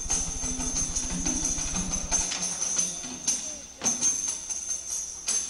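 Live stage music of jingling percussion with sharp strikes every second or so, and a low buzz that cuts off about two seconds in.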